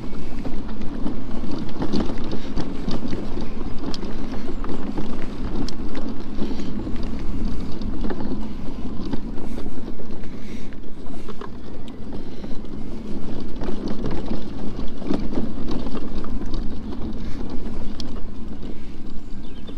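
Mini Crosser electric off-road mobility scooter riding over a sticky, bumpy mud track: a steady low rumble of tyres and chassis, broken by frequent small knocks and rattles from the bumps, with wind buffeting the microphone.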